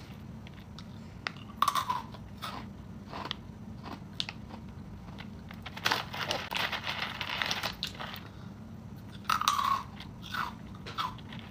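A person biting and chewing a crunchy snack, with irregular crunches that come in louder clusters about two, six and nine seconds in.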